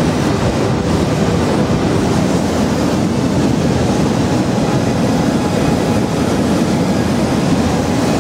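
Hot-air balloon propane burners firing, a steady loud rushing noise, mixed with the hiss of firework fountains on the ground.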